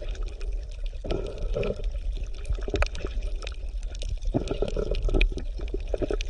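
Underwater ambience: irregular bubbling and gurgling with scattered crackling clicks over a steady low rumble.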